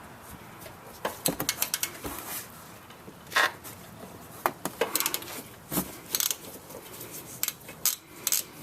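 Ratchet wrench clicking in short runs and metal tools clinking while the top 10 mm caliper slide-pin bolt is worked loose on a car's rear disc brake.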